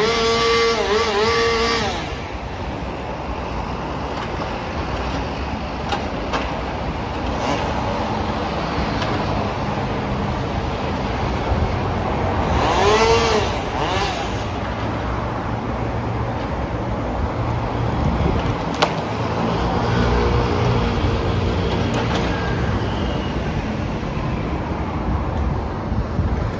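An engine running steadily, briefly revving up and down during the first two seconds and again about thirteen seconds in.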